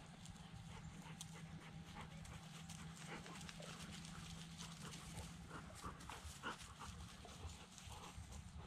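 Faint crunching footsteps moving through dry field cover, with scattered short rustles and snaps. A faint low hum underneath stops about six seconds in.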